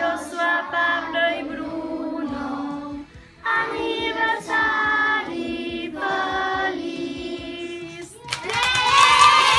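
A class of children singing a birthday song together, with a short break about three seconds in. Near the end the singing stops and the children break into loud cheering and shouting.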